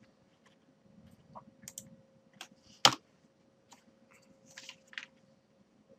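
Computer keyboard being typed on: a few sparse keystrokes, with one sharper, louder key click about three seconds in.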